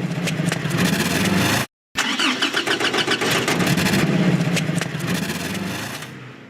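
A motor vehicle's engine starting and running. The sound drops out completely for a moment just under two seconds in, then resumes and fades near the end.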